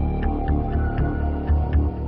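Ambient background music: a low, pulsing bass under a light ticking beat of about four ticks a second.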